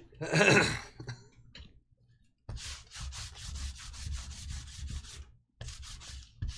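Trading cards being handled: a fast run of papery rubbing and rustling as card stock slides against card stock, broken by a short pause. A brief, louder burst comes about half a second in.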